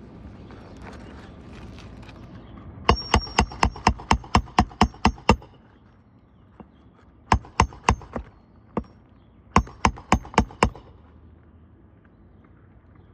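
Hammer blows driving a roofing nail to refasten an asphalt shingle, sharp metallic strikes with a slight ring. A quick run of about ten blows, then after a pause two shorter runs of four to six blows.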